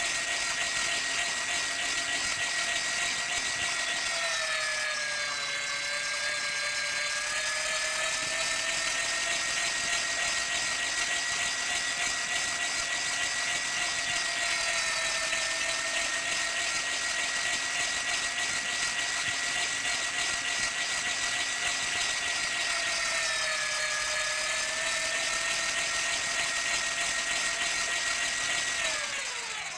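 Meat grinding machine's motor running with a steady high whine; its pitch sags twice, briefly, and falls away near the end as it starts to wind down.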